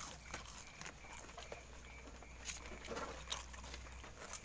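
Faint scattered clicks and rustles of hands picking fried eel and rice from a plastic bowl while eating, over a faint steady low hum.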